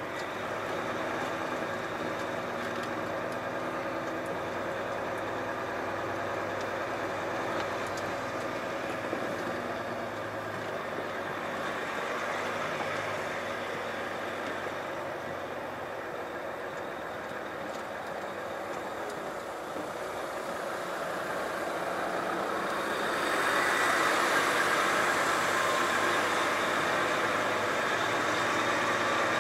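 Volvo FH truck's diesel engine running steadily, growing louder about two-thirds of the way through.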